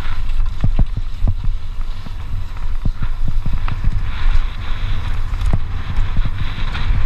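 Wind buffeting the microphone over a mountain bike rolling fast down a dusty dirt singletrack, with tyre noise on the loose dirt and frequent irregular knocks and rattles from the bike over bumps.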